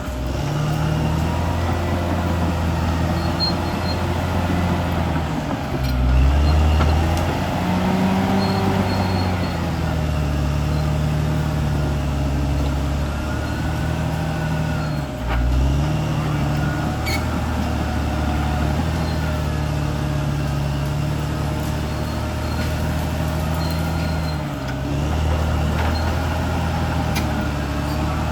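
Caterpillar D6R XL bulldozer's diesel engine running steadily at work, its note shifting several times, with brief heavier surges about six and fifteen seconds in.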